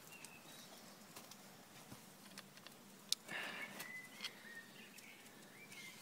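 Faint crackling and popping of a wood campfire, with a sharp pop about three seconds in followed by a brief hiss.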